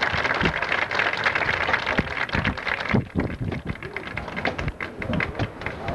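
Stadium crowd applauding and cheering after a marching band performance, thinning out about halfway through to scattered claps.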